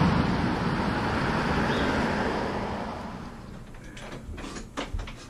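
Street traffic: a passing vehicle's noise fades away over the first three seconds. Near the end, a few short sharp clicks and knocks.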